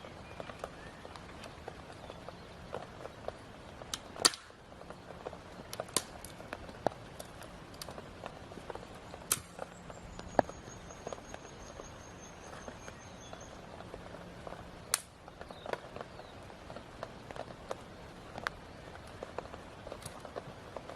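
Scattered sharp clicks and knocks of camping gear being handled while pitching a tent, the loudest about 4, 9, 10 and 15 seconds in, over a steady hiss of rain. A faint high, even trill runs for a few seconds near the middle.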